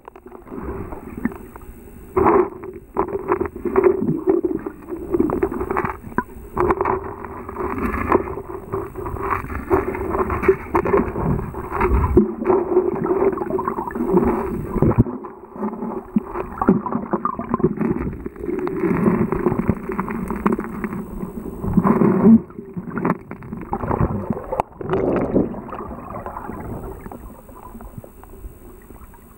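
Muffled underwater sound picked up by a camera held under the surface of a river: churning water with frequent irregular knocks and bumps as the swimmer moves, over a steady low drone.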